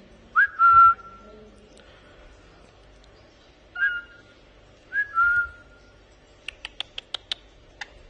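Three short whistles, each sliding quickly up onto a held note, followed near the end by a quick run of sharp clicks.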